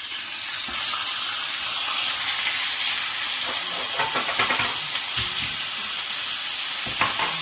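Stuffed squid sizzling in a hot frying pan: a steady, loud hiss, with a few light knocks around the middle and near the end.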